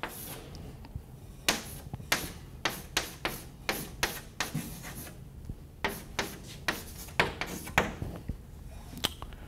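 Chalk writing on a chalkboard: a run of short, scratchy strokes, with a pause about a second in and the strokes ending shortly before the end.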